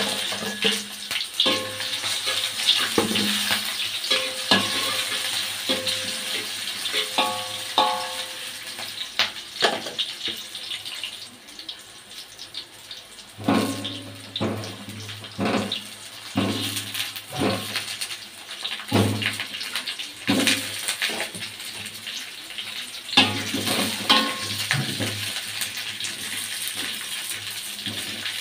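Chopped shallots, garlic and chili sizzling in hot oil in a wok, with knocks and scrapes of a spatula and of ingredients dropping into the pan.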